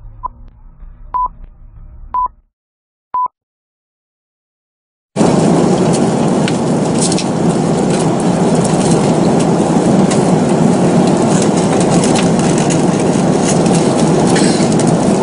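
Four short beeps about a second apart as intro music fades, then a couple of seconds of silence. About five seconds in, the steady rushing noise of a jet airliner's cabin in cruise starts abruptly and runs on evenly.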